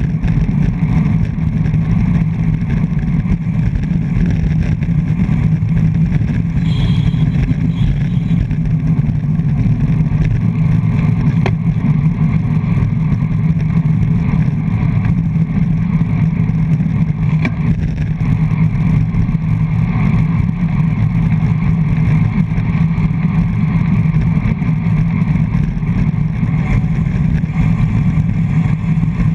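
Steady wind rush and road rumble picked up by a handlebar-mounted GoPro on a racing road bike at speed.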